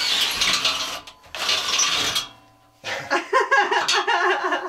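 Cordless drill boring out an existing hole in a steel battery rack with a large bit, shaving the hole wider: two rough grinding runs of about a second each with a short pause between. A wavering, pitched sound follows for the last couple of seconds.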